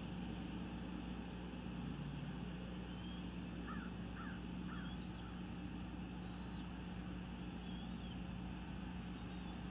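Steady hiss and low electrical hum from an outdoor nest-camera microphone, with three short bird calls in quick succession about four seconds in and a few faint high chirps now and then.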